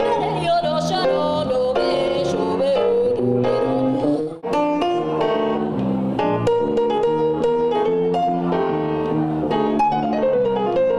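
Live jazz from a trio: a woman sings over electric bass and grand piano. The music breaks off for an instant about four seconds in, then piano and bass play on.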